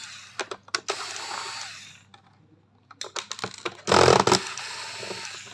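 Cordless electric screwdriver backing screws out of a robot vacuum's plastic bottom cover: its motor whirs in short runs amid clicks and taps of the bit and screws on the plastic. The loudest run comes about four seconds in.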